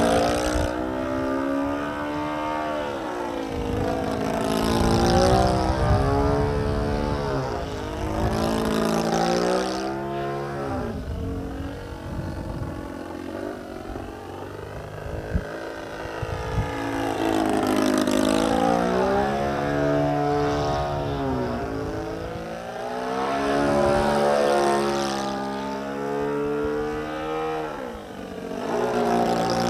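Propeller and motor of a radio-controlled 3D aerobatic model plane in flight, the buzz rising and falling in pitch again and again as the throttle changes and the plane swoops past.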